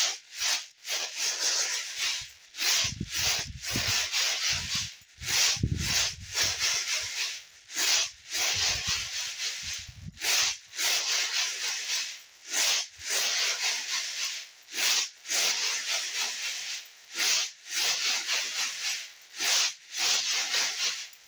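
Dried popcorn kernels shaken and tossed in a woven bamboo winnowing tray (bilao), rustling and sliding in repeated swishes about one or two a second as the chaff is winnowed off.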